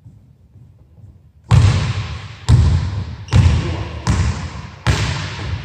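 Basketball dribbled on a hardwood gym floor: five hard bounces, roughly one a second, starting about a second and a half in, each ringing on in the hall's echo.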